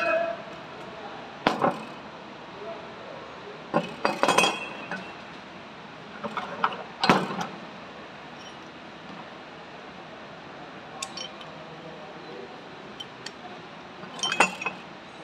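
Metal parts of a 12 V truck starter motor clinking and knocking as they are handled, each strike a sharp clink with a brief ring. There are four clusters: about a second and a half in, around four seconds, around seven seconds, and near the end.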